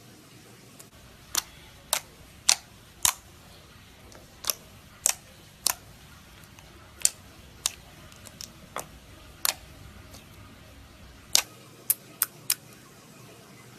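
A series of sharp, separate clicks, mostly about half a second apart, with a longer gap before a quicker cluster near the end.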